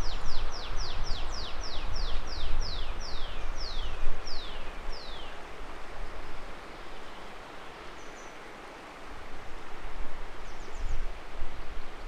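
Steady rush of a fast, shallow river with wind. Over it, a dozen or so quick falling whistles repeat, slowing down and stopping about five seconds in, and a short chirp comes near the end.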